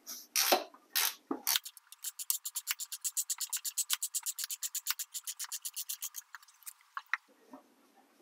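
A 10 mm ratcheting wrench loosening a fender bolt: a few knocks as the wrench goes onto the bolt, then an even run of ratchet clicks, about nine a second, that stops about six seconds in.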